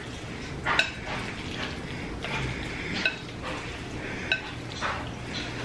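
Chopsticks mixing sauce-coated black bean noodles in a ceramic bowl: soft wet stirring, with three sharp clinks later on as the chopsticks strike the bowl, which rings briefly each time.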